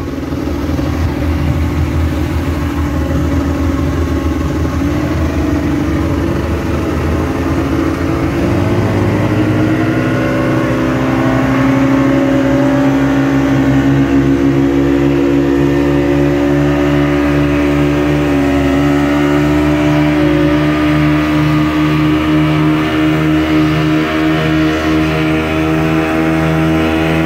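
Speedboat outboard motor running under way, rising in pitch about eight to nine seconds in and then holding steady at speed, with water rushing in the wake.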